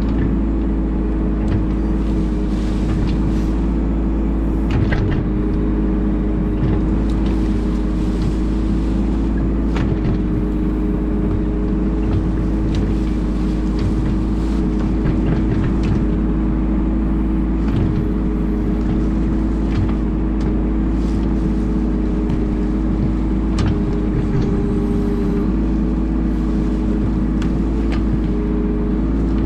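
Bobcat E10 mini excavator's diesel engine running steadily under hydraulic load as the bucket digs into the hillside, with scattered brief scrapes and knocks from the bucket in the soil.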